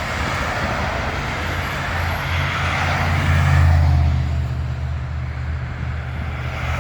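Motor engine running with a steady low hum under a rushing noise, swelling louder about three to four seconds in and then easing back.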